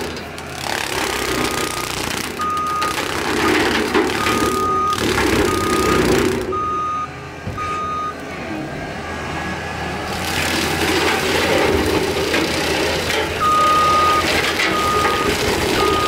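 John Deere compact track loader running hard with a skid steer brush cutter chewing into cedar, the noise surging several times as it bites. Its backup alarm beeps in two spells of short, evenly spaced beeps while the loader reverses.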